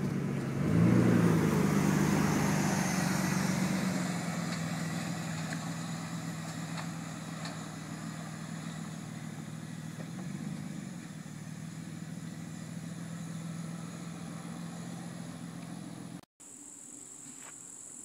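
Car engine revving up about a second in, then running steadily and slowly fading as the car pulls away. It cuts off abruptly near the end.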